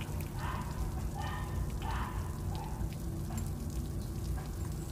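Faint crackling of a tiny egg frying in a miniature aluminium wok over a small flame, over a steady low rumble. For the first two and a half seconds a series of short mid-pitched calls repeats about twice a second, then fades.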